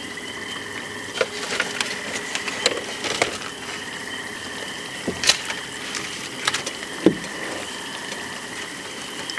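Hot oil sizzling steadily in a frying pan of battered fish and pickles being deep-fried, with scattered clicks and knocks of plates and utensils being handled.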